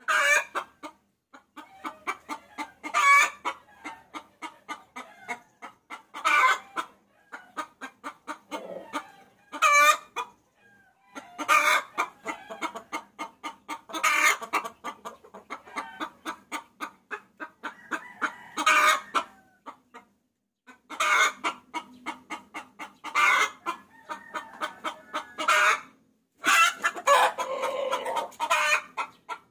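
Hen cackling: trains of rapid clucks, each ending in a louder drawn-out call, repeating every two to three seconds. It is a hen's call to a rooster, played as a lure call.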